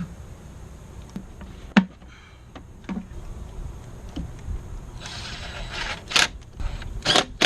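Parts being fitted by hand in a car's engine bay: a few sharp clicks and knocks, the loudest about two seconds in, a short rustling scrape about five seconds in, then a quick run of knocks near the end.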